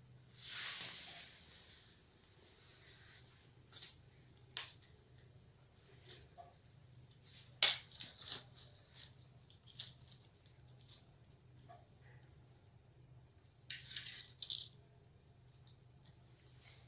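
A cat rummaging among plastic bags, a bottle and packaging: bursts of plastic rustling and crinkling with scattered sharp clicks and knocks. The longest rustle comes near the start, the loudest knock about eight seconds in, and another rustle near the end.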